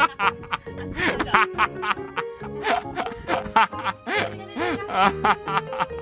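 Background music playing steadily, with a toddler's short excited squeals and giggles over it.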